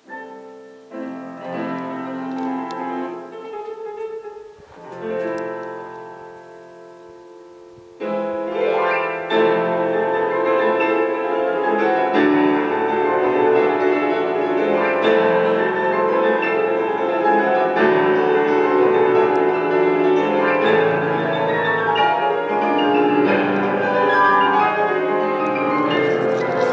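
Piano music: a few sparse, sustained chords at first, then from about eight seconds in a louder, fuller, continuous passage.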